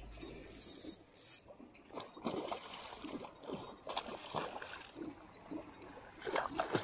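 Hooked salmon trout splashing at the surface as it is brought to the landing net, a series of irregular splashes.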